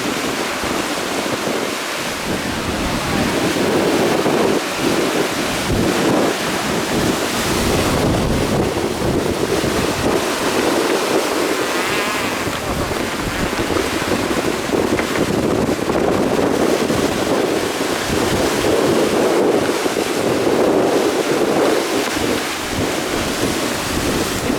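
Water rushing along a sailboat's hull as it surfs down an ocean swell, a steady loud rush with wind buffeting the microphone.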